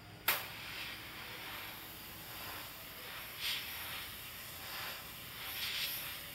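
Airbrush spraying paint: a steady hiss that starts sharply just after the beginning and swells louder twice.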